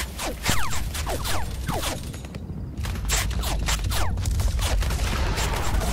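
Film gunfire sound effects: a barrage of irregular gunshots with bullets whining past in short falling-pitch whistles, over a steady low rumble. There is a brief lull about two and a half seconds in.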